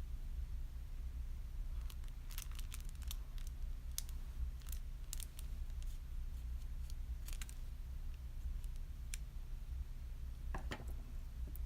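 Scattered light clicks and taps from small items being handled, coming in short clusters over a steady low hum.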